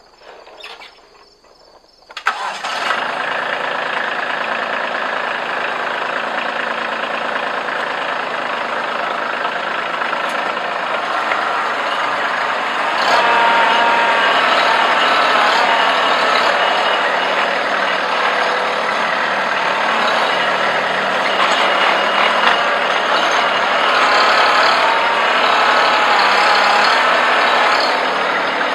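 Kubota B2650 compact tractor's three-cylinder diesel engine starting up about two seconds in, then running steadily. It grows louder about 13 seconds in and keeps running as the tractor moves forward.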